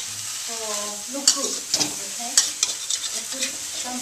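Rice noodles and egg stir-frying in a stainless steel wok, with a steady sizzle. From about a second in, a spoon repeatedly clinks and scrapes against the wok as the noodles are tossed.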